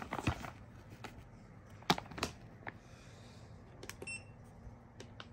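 Thermoelectric cooler's cooling fan motor running with a steady low hum. Clicks and knocks from handling sound over it, the sharpest about two seconds in, and a brief high beep comes about four seconds in.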